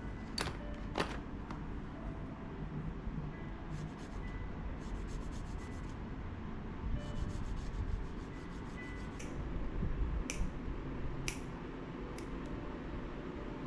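Hands rubbing and scratching at wet hair and scalp during a spa hair wash and massage, with a few sharp clicks and two runs of rapid fine ticking.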